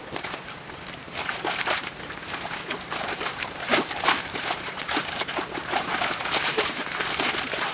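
Dense, irregular rustling and crackling clicks, starting about a second in and going on unevenly.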